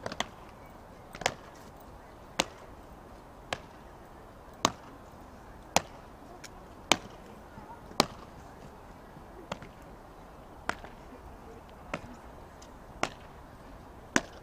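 Guards' boots striking the stone pavement in a slow ceremonial march: sharp heel strikes at a steady pace of about one a second.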